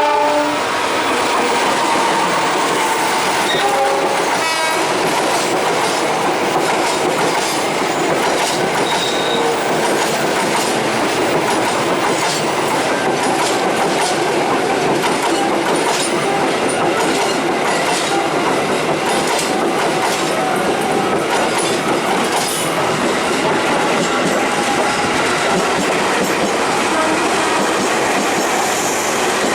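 A train passing close by: a steady, loud rush of running noise with the wheels clattering over the rail joints. A horn sounds briefly right at the start.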